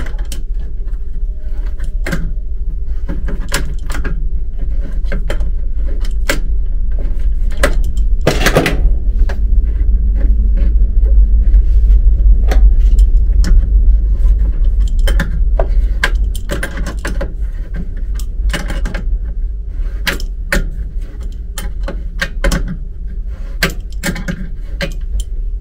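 Metal parts and tools clinking and clicking as they are handled, over a steady low rumble that grows louder in the middle and eases off after about 16 seconds.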